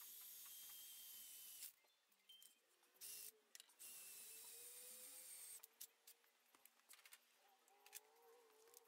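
Faint, high-pitched whir of a drill spinning a stone cylinder hone in a Chevy 350 block's bore, running in two short stretches with a pause between, then stopping for a few seconds.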